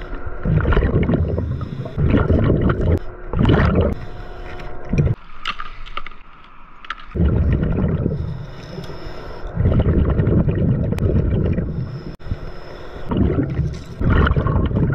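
Scuba diver's regulator exhaust bubbles heard underwater: bubbling in repeated bursts a second or two long, with pauses between breaths.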